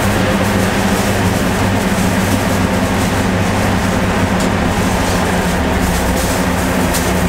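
An engine running steadily at one constant speed, a low even hum.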